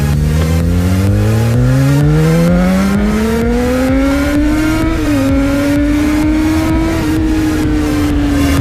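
Yamaha XJ6's inline-four engine accelerating hard, its pitch climbing steadily for about four and a half seconds, dipping slightly about five seconds in, then holding a high, steady note before cutting off suddenly at the end.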